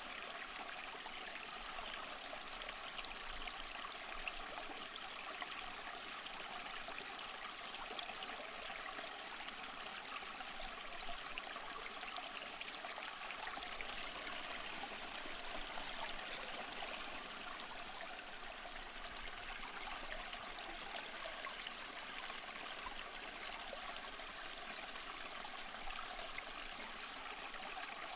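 Small stream running over stones: a steady, even rush of water with fine trickling and splashing.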